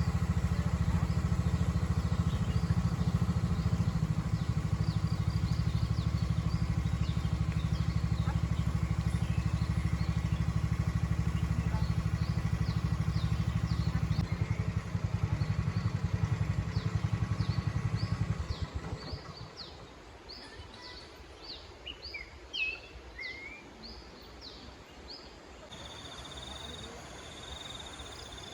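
A small engine runs steadily and then falls away about two-thirds of the way through. Repeated short high chirps go on throughout, and a steady high insect buzz, like a cricket, starts near the end.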